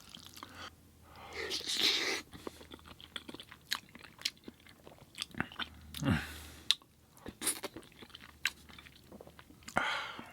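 Close-miked chewing, with many small wet mouth clicks and crunches and three louder swells of noise, about a second and a half, six and ten seconds in.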